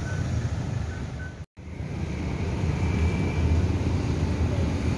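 Street ambience: a steady low rumble of road traffic, with wind on the microphone. The sound drops out for a split second about one and a half seconds in.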